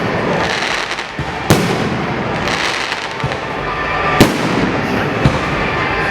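Fireworks going off: a loud bang about a second and a half in and another at about four seconds, with smaller pops between, over a continuous crackle.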